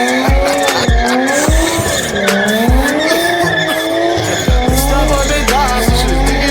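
Background music with a steady low beat under a sliding, wavering melody line; a deep bass comes in about two-thirds of the way through.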